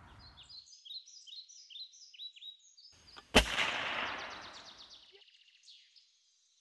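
Outro sting: birds chirping in quick, repeated falling notes, then a single loud gunshot a little over three seconds in that rings out and fades. Chirping carries on faintly for a couple of seconds after it.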